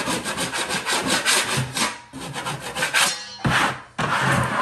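Steel drywall knife scraping across a primed drywall wall: a quick run of short rasping strokes for about two seconds, then a few longer, separate sweeps. The blade is knocking down high spots and loose bits before the wall is mudded.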